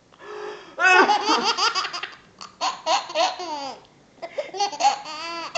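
Baby boy laughing in three bouts of rapid, high-pitched belly laughter with short pauses between them. The laughter starts about a second in.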